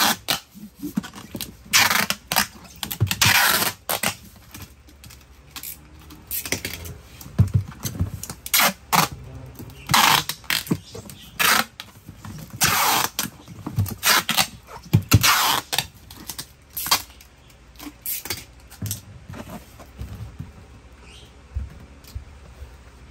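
Clear packing tape pulled off the roll in a string of short rips around a cardboard box, with rubbing and knocks as the box is turned and the tape pressed down. The rips come about every second or two and thin out in the last few seconds.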